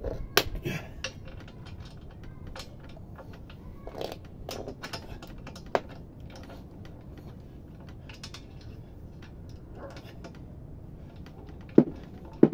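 Hand socket ratchet turning a bolt, its pawl clicking in short runs, with small metal clinks of socket and bolt; two sharp clicks near the end stand out as the loudest.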